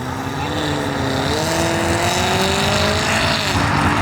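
A car's engine accelerating, its pitch rising steadily, then dropping about three and a half seconds in as it shifts up.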